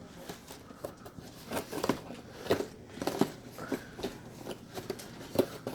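Packaging being handled by hand: irregular crinkling, rustling and clicking of plastic and cardboard as someone struggles to get the box open.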